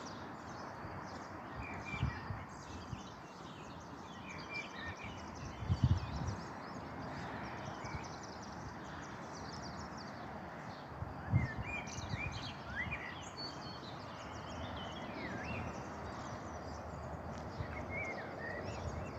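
Many small birds chirping and twittering over steady background noise, with a few low thuds, the loudest about six and eleven seconds in.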